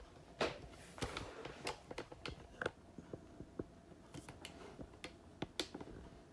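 Irregular clicks and knocks from the camera being handled and moved, with no steady rhythm.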